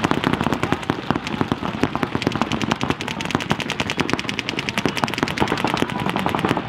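Paintball markers firing in rapid, unbroken strings of shots, many a second, as during a tournament point.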